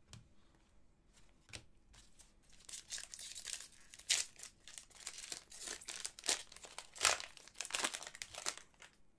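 Hockey trading-card pack wrapper being crinkled and torn open by hand, a dense crackling that starts about two and a half seconds in and runs until just before the end, with sharp peaks around four and seven seconds.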